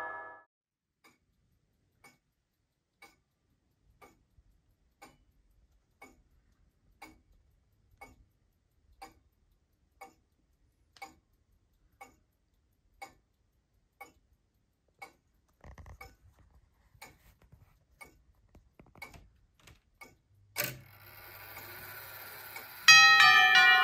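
Edwardian J.J. Elliott tubular bell longcase clock ticking faintly and evenly, about once a second. Near the end there is a sharp click, and then the tubular bells begin their hour chime, ringing loudly.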